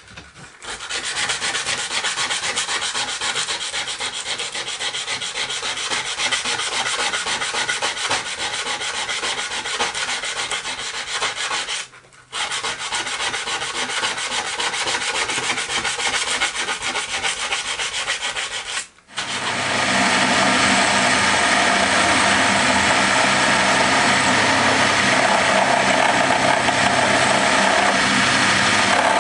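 A small part rubbed back and forth by hand on an abrasive sheet, in quick scraping strokes, broken by a brief pause part way through. About two-thirds of the way in this gives way to a milling machine running steadily, its end mill cutting a slot in a thin metal plate.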